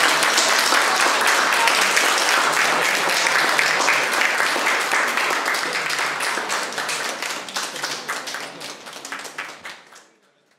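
Audience applauding: dense clapping that gradually thins and fades out near the end.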